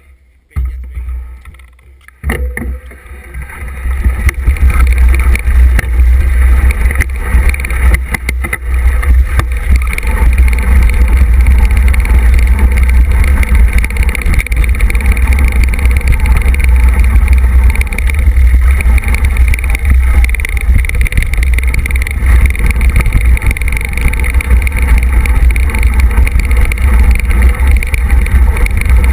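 Heavy wind rumble on a mountain biker's action-camera microphone while riding a dirt trail, mixed with tyre noise and rattles from the bike over bumps. It starts quietly and becomes loud and steady about two seconds in.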